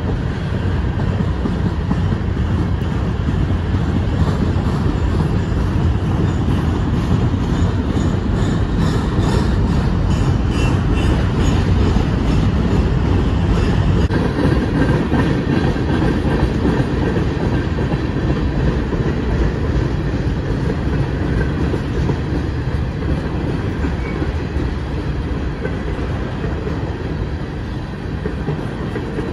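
Freight train cars rolling past at close range: a steady, loud noise of steel wheels on the rails as centerbeam flatcars and covered hopper cars go by, easing a little near the end.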